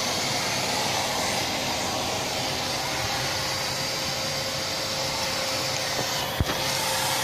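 Wet-and-dry vacuum cleaner running steadily with a thin whine, its hose sucking through a small brush nozzle drawn along grooved wooden decking. There is a brief knock about six seconds in.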